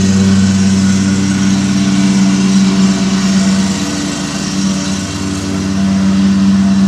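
Lawn mower engine running at a steady speed.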